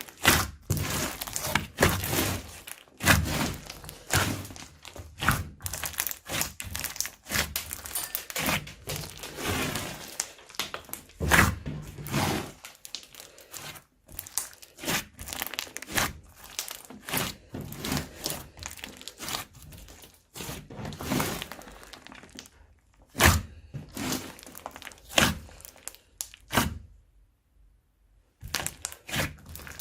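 Slime mixed with crunchy foam beads being squeezed and kneaded by hand: irregular crackling, crunching and sticky popping and thunks. There is a short pause about 27 seconds in.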